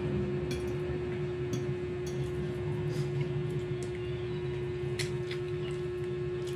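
A steady electrical hum, with a few light, sharp clicks of metal forks against ceramic plates as noodles are eaten.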